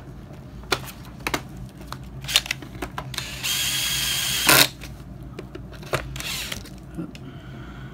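Handheld power drill driving a screw into a hoverboard's plastic shell: one steady run of about a second near the middle, with a whine in it. Clicks and knocks from handling the drill and shell come before and after.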